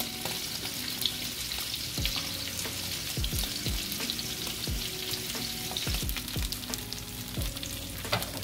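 Salmon steaks searing in oil in a stovetop grill pan: a steady sizzle with small irregular spits.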